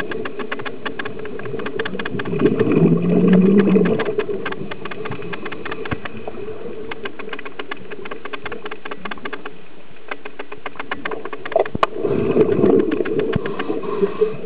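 Underwater sound on a scuba dive: a steady, dense crackle of clicks goes on throughout. Two louder rumbling bursts, one about two seconds in and one about twelve seconds in, come from the diver exhaling through the regulator, the bubbles rumbling past the microphone.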